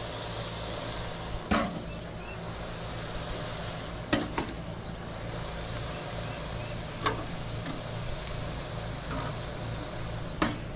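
Bratwursts and steaks sizzling on a gas grill's hot grates, with a steady low hum underneath. Metal tongs clack sharply about five times as the sausages are picked up and laid on the grate.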